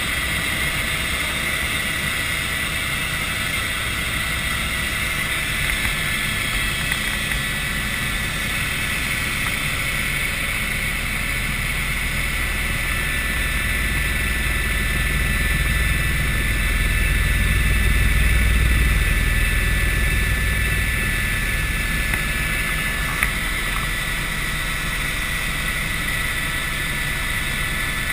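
Helicopter in flight heard from inside the cabin: a steady rotor and engine drone with a steady high whine over it, swelling louder for a few seconds past the middle.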